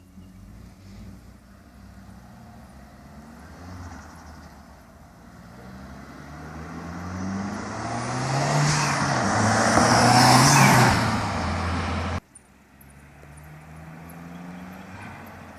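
Turbocharged Audi A3 engine revving up, getting steadily louder, with a strong rushing hiss at its peak. The sound cuts off abruptly about twelve seconds in, and a quieter engine runs on after that.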